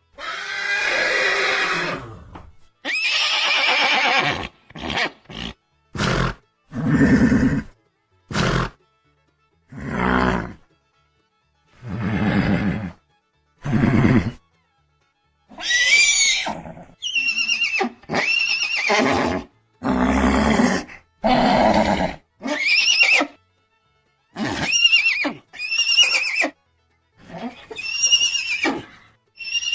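Horses neighing and whinnying in a string of separate calls with silent gaps between. The earlier calls are lower-pitched; from about halfway on comes a run of high calls, each rising and then falling in pitch.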